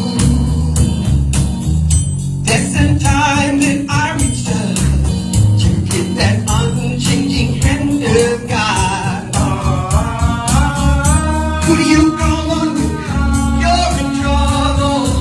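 Live blues-gospel band music with a steady drum beat, and a sung melody over it in the second half.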